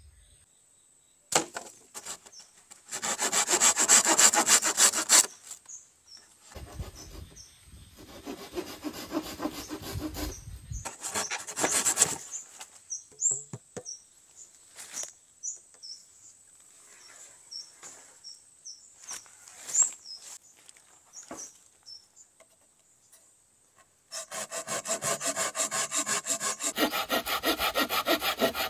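Hand saw cutting through a green bamboo pole in quick back-and-forth strokes. It comes in several bouts, the longest near the end, with scattered knocks and rustles of bamboo and leaves between them.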